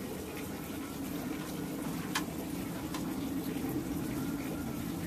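Steady low rushing background noise, with a single short click about two seconds in.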